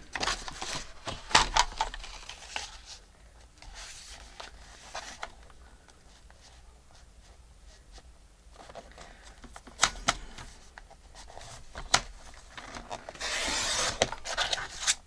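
Paper being cut along a score line and handled: scattered clicks and rustles, a quiet stretch in the middle, then a longer rustle near the end.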